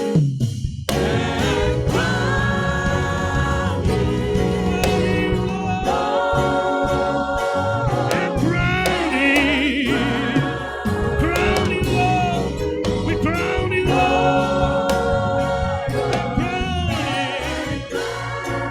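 Gospel choir singing a hymn with held notes over organ and keyboard accompaniment.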